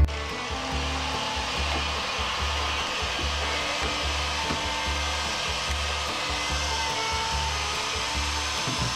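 Corded angle grinder with a thin cut-off wheel running at a steady whir, cutting through rusted sheet-steel inner fender panel.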